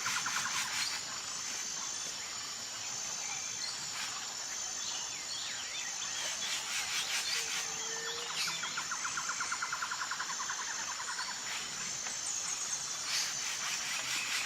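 Rainforest ambience: a steady chorus of insects with a thin high tone, rapid trilling calls about halfway through, and one short rising whistled call about eight seconds in.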